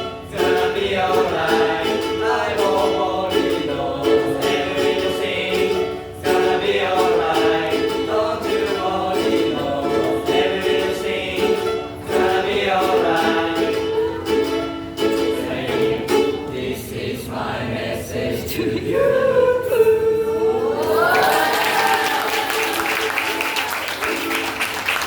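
A group of voices singing to a strummed ukulele. The song ends on a held note about twenty seconds in, and applause follows.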